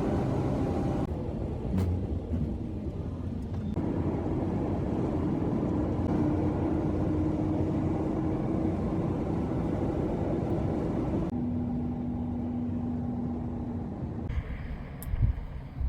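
Car driving at a steady cruise: an even engine drone with tyre and road noise. The sound changes abruptly several times, as at cuts between clips, and near the end it turns gustier with a few thumps.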